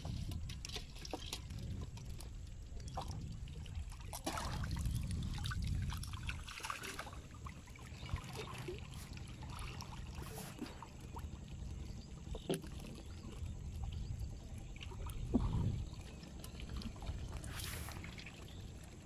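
River water sloshing and splashing as a man wades chest-deep and hauls up a mesh ring net, with scattered small clicks and knocks and a few louder splashes.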